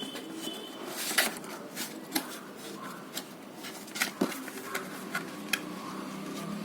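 Postcards being handled and shuffled by hand: light rustling of card with scattered sharp taps and clicks.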